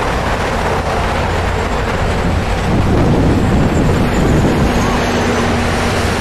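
Steady outdoor roar of wind buffeting the microphone mixed with road traffic, swelling louder about three seconds in.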